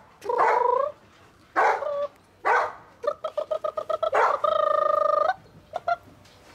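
German Shepherd puppies yelping and whining in short high calls, one rising in pitch. Midway comes a quick run of squeaks, about eight a second, then a long steady squeal of about a second, and near the end two short chirps.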